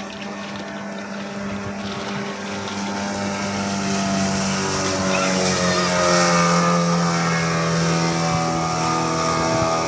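Yamaha 40 hp outboard motor pushing a speedboat at speed. It gets louder over the first five seconds, then holds steady, and its pitch shifts a little about halfway through.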